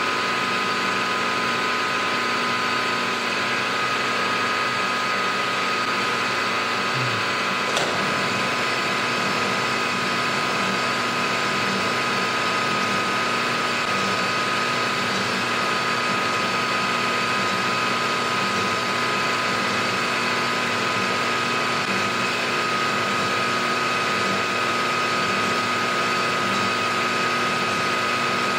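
Milling machine spindle running with an end mill cutting a 45-degree face across a metal block, a steady whine that holds its pitch throughout. A single click about eight seconds in.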